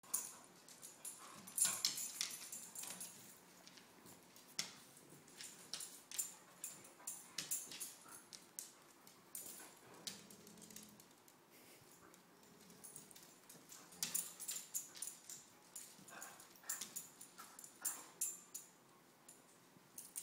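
Dogs play-fighting: scattered clicks and scuffles, with a few brief dog whines.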